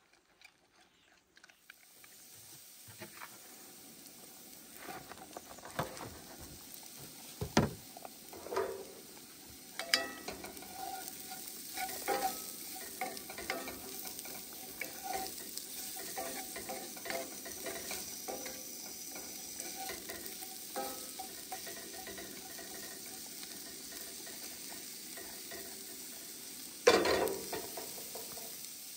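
Diced onion and other vegetables sizzling as they fry in a cast-iron pan on a camp stove, with a wooden spatula stirring them and knocking and scraping against the pan now and then. A louder knock comes near the end.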